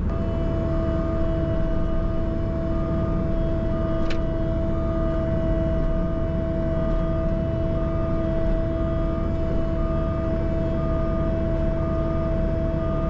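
CAT 304 mini excavator's diesel engine running steadily, with a steady whine over it and a short beep repeating about twice a second. A single sharp click about four seconds in.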